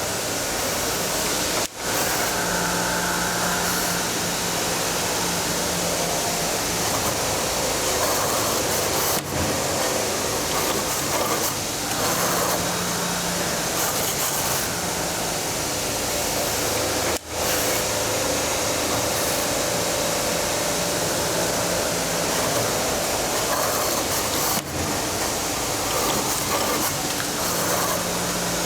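A 12-axis CNC wire forming machine running through its spring-forming cycle: a steady mechanical hiss with servo hums that rise and fall. The sound drops briefly about every seven to eight seconds.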